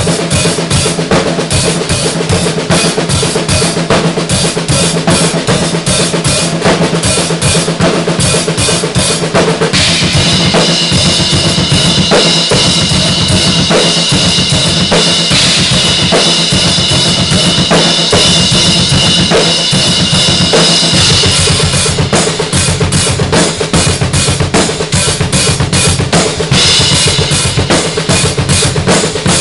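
Two drum kits played together in a 14/4 groove (two bars of 7/4), with busy bass drum, snare and cymbal strokes in patterns grouped three, four, four, three. From about ten seconds in to about twenty-two seconds a held cymbal wash rides over the drums.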